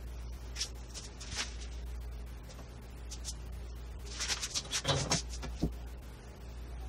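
Paper rustling and scraping on a wooden workbench as a paper pattern and a sword blade are handled, with a cluster of knocks and a sharp click about four to five and a half seconds in as the sword is laid on the paper. A low steady hum underneath.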